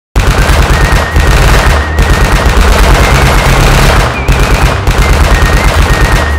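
Rapid, continuous machine-gun fire sound effect, loud, cutting in abruptly after a moment of silence. A whistled tune carries on underneath.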